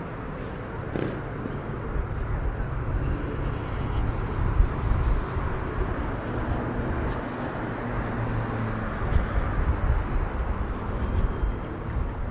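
City street ambience with road traffic: a steady low rumble with scattered small clicks and knocks.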